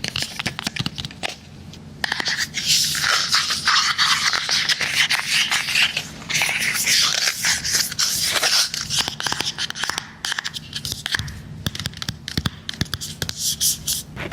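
Close-up ASMR tapping and scratching on objects near the microphone. A run of quick sharp taps leads into dense scratching from about two seconds in. The scratching lasts several seconds, then gives way to scattered taps with some more scratching near the end.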